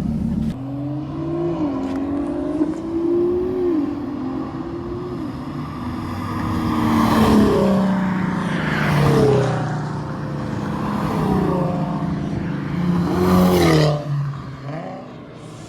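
Infiniti Q50 engine and exhaust, with test pipes fitted in place of the catalytic converters, running under way. Its note rises and falls with the revs, with two louder surges of acceleration, about halfway through and near the end.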